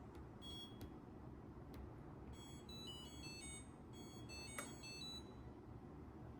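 Faint electronic beeping from a Samsung dishwasher's control panel: two short high beeps, then a quick run of short notes stepping up and down in pitch like a little jingle, with one sharp click partway through.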